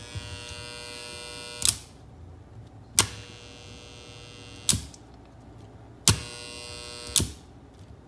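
Energized 220 V AC relay coils giving a steady electrical buzz, a normal sound for this type of relay. The buzz is cut off and restarted by five sharp clicks as the circuit breaker is switched off and on; it is loudest at the start and again just after six seconds.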